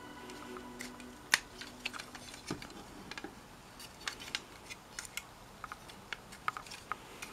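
Irregular small plastic clicks and taps from a Kotobukiya Hexa Gear Bulkarm α plastic model kit as its limbs and joints are handled and moved into a new pose, with one sharper click about a second and a half in.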